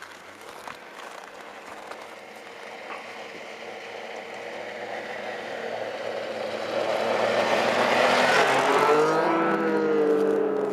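Snowmobile approaching and passing by: its engine grows steadily louder, is loudest about eight to ten seconds in, and its note drops as it goes past.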